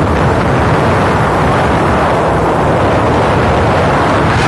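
Steady rush of wind over the microphone and road noise from riding in an open vehicle at speed, with a low engine drone underneath.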